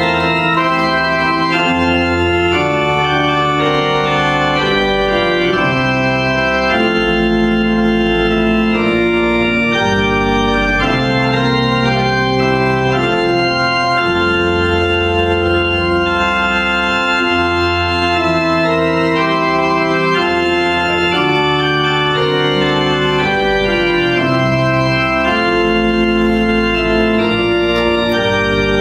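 Organ music playing slow, sustained chords that change every second or two.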